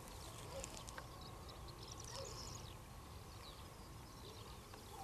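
Faint open-field ambience with soft, scattered bird chirps.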